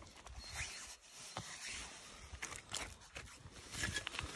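Faint scraping and rustling with a few small clicks, as rock pieces and loose soil are handled with gloved hands.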